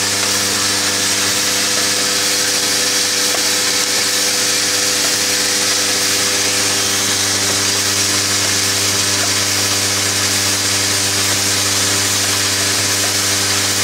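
Automatic MCB box clamping and screwing machine running steadily: an even hum made of several steady tones under a constant hiss.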